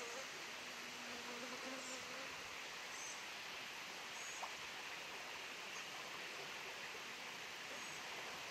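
Steady rush of flowing water, with faint high chirps about once a second and a faint low hum briefly near the start.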